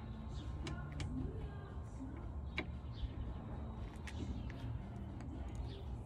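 Scattered light metallic clicks and taps of pliers working parts into a skid steer's hydraulic joystick base, over a steady low rumble.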